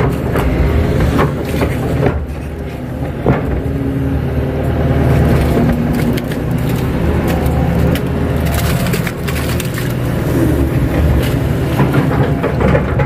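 Kato crawler excavator's diesel engine running, heard from inside the cab, as the bucket pushes and drags soupy mud. Several sharp knocks and clanks come through, from the bucket and boom working.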